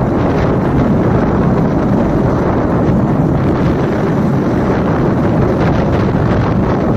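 Steady, loud wind rushing over the microphone of a moving vehicle, with the rumble of tyres on the road underneath.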